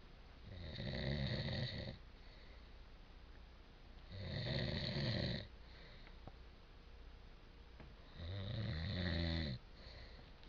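A man snoring in his sleep: three loud snores, each lasting about a second and a half, coming roughly every four seconds with quiet breathing gaps between them.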